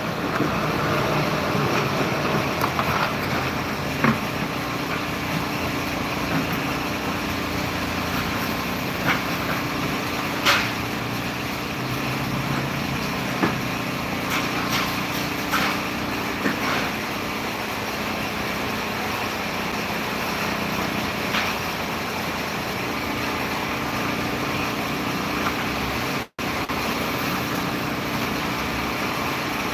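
A heavy vehicle engine running steadily, with a low hum through most of the stretch and scattered sharp knocks over it. The sound cuts out completely for a moment near the end.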